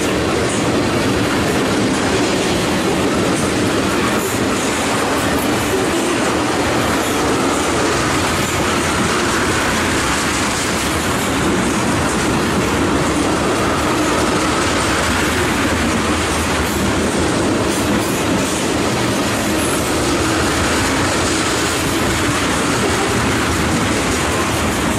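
A freight train of steel tank cars rolling past close by: the steady, loud noise of wheels running over the rails, with a faint whine rising and falling now and then.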